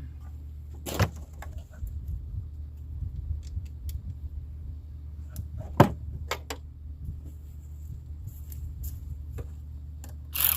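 Metal clinks and knocks of hand tools and parts being handled, a sharp one about a second in and another near six seconds, over a steady low hum.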